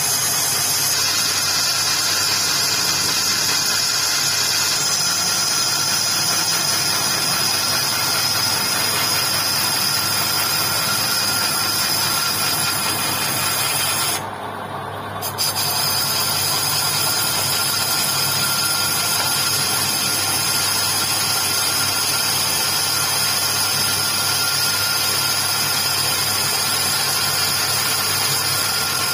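Metal lathe spinning a motorcycle wheel hub while a tool bit cuts the inside of its brake drum to resurface it: a steady machine hum with a high, even ringing from the cut. About halfway through, the high ringing drops out for about a second, then comes back.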